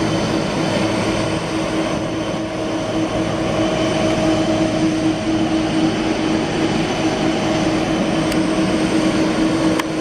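Boeing 747-400's four turbofan jet engines running steadily as the airliner moves on the runway: a continuous jet roar with a low hum and a steady high whine.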